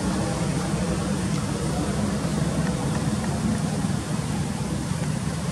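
Steady low background rumble, even and unbroken, with no distinct calls or knocks.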